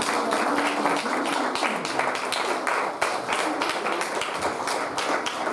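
A crowd of people clapping, with dense, irregular claps throughout and a few voices underneath.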